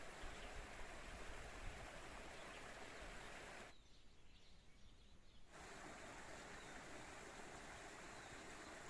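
Faint, steady rush of flowing spring water, which drops away for about two seconds in the middle and then comes back.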